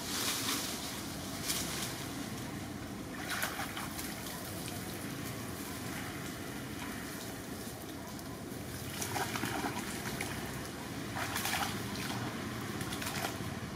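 Steady rush of muddy rainwater flowing, with a few brief splashes and rustles from young monkeys in the water and in the branches.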